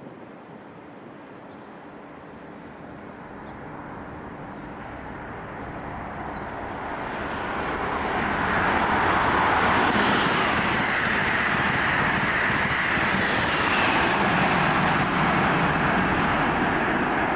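Amtrak Acela Express high-speed electric train approaching and passing through the station: its rumbling rush grows over the first several seconds, then stays loud and steady.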